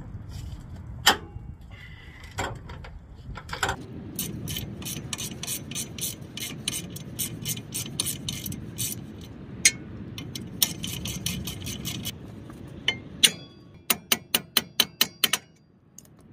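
Socket ratchet clicking in runs as bolts on a truck's front upper control arm are turned: a steady run of about three to four clicks a second, a quicker run midway, and a last short run near the end.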